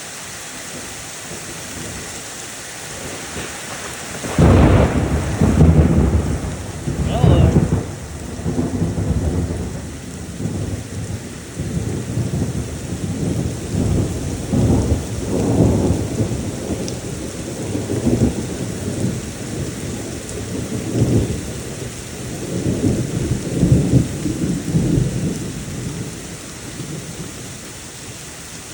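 Thunderstorm: steady rain, then a sudden loud thunderclap about four seconds in that rolls on as a long, pulsing low rumble for some twenty seconds before easing off near the end.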